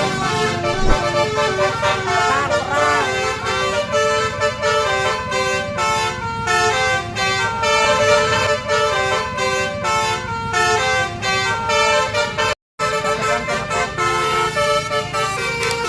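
Bus 'telolet' multi-tone horns playing a quick melody of short stepped notes, over a low engine and street rumble. The sound cuts out for an instant about three quarters of the way through, then the tune carries on.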